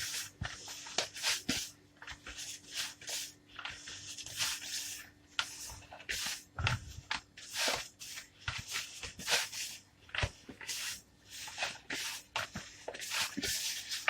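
Soft, sticky yeast dough being kneaded by hand in a bowl: an irregular run of short handling strokes about one or two a second, with one heavier thump about halfway.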